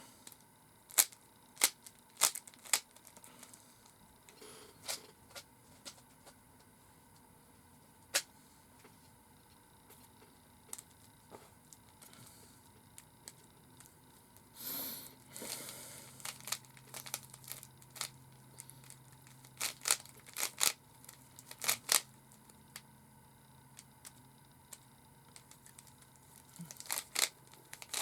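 Rubik's Cube layers being twisted by hand: sharp plastic clicks at irregular intervals, some in quick runs, with a longer rasping turn about halfway through.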